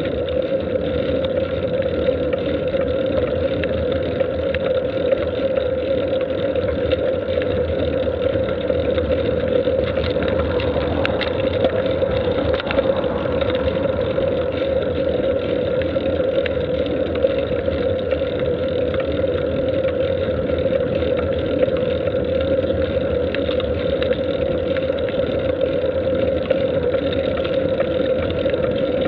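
Steady engine and road drone of a moving vehicle: an even hum that does not change.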